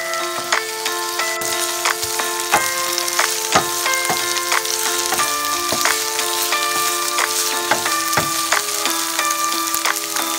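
Strips of bell pepper and carrot sizzling in a frying pan as they are stirred with a wooden spatula, under background music with held melodic notes.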